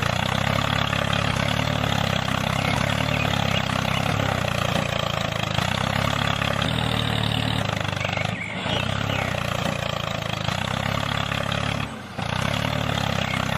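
Tractor engine running steadily, dipping briefly about eight and a half and twelve seconds in.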